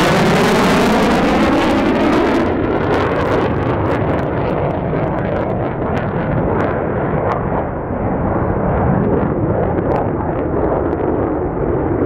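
A JASDF F-4EJ Phantom II's twin General Electric J79 turbojets passing by: loud jet noise with a falling sweep in the first couple of seconds, then the hiss drops off and a deep rumble with sharp crackles carries on as the jet moves away.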